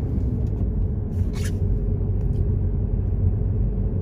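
Steady low rumble of a car's engine and tyres on the road, heard from inside the moving car's cabin at cruising speed.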